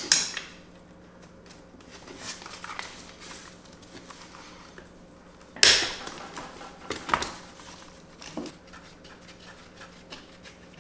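Socket wrench and extension clinking against metal as the socket is worked onto a transmission-to-engine bolt, with scattered small clicks and one sharp metallic clank a little past halfway, followed by a few lighter knocks.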